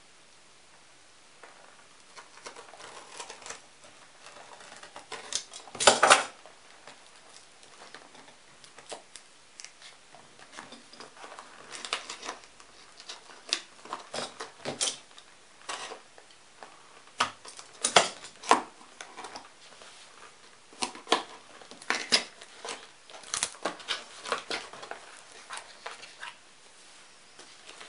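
Hands unpacking packaging and small parts: scattered clicks, taps and brief rustles, the loudest a short rustle about six seconds in.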